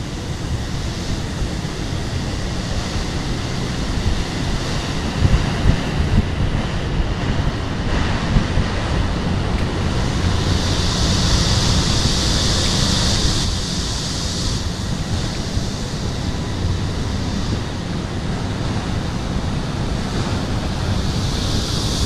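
Wind buffeting the microphone: a dense, gusty low rumble, with a steady high hiss that comes in for about three seconds in the middle.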